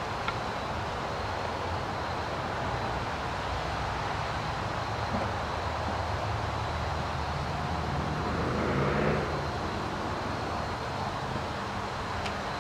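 An engine hums steadily at idle, swelling briefly about nine seconds in.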